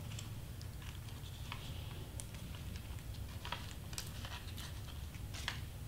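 Scattered, irregular light ticks and taps of hands placing and pressing small double-sided foam adhesive squares onto cardstock, over a low steady hum.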